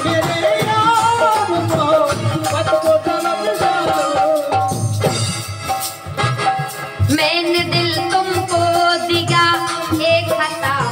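Live music with a regular drum beat under a sustained, wavering melody line.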